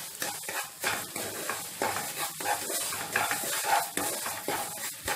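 Semolina roasting in hot ghee in a non-stick pan. A wooden spatula scrapes and stirs through it in quick irregular strokes, over a sizzle of the frying ghee.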